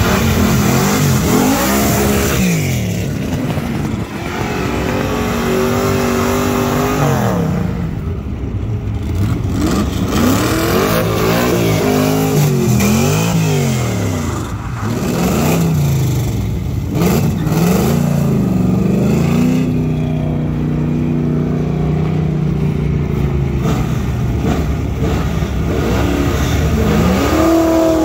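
Muscle car engine driven hard around an autocross course, its revs repeatedly climbing and dropping every second or two as the driver accelerates, shifts and brakes between cones, with a longer steady pull about two-thirds of the way through.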